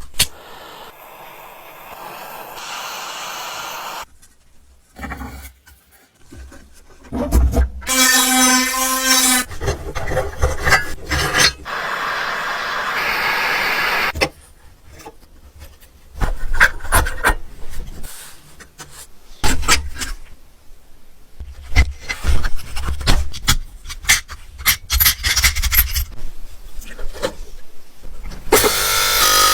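Short bursts of scraping, rubbing and filing, interspersed with sharp clicks and knocks, from hand-tool restoration work on an old dump truck's parts. A brief high whine is heard about eight seconds in.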